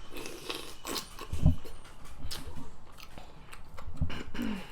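Close-miked chewing and mouth smacking of seafood, with many small wet clicks. There is a single heavier low thump about a second and a half in.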